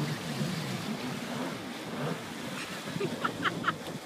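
Kawasaki stand-up jet ski's engine running with its pitch wavering up and down, then fading out about a second and a half in as the ski tips over, leaving water splashing and wind noise. Near the end come three short high-pitched yelps.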